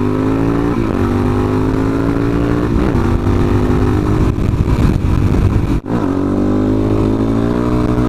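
2006 Suzuki DR-Z400SM's single-cylinder engine through a full Yoshimura exhaust, pulling hard under way. Its pitch climbs steadily and drops back at each upshift, with a brief sharp cut about six seconds in.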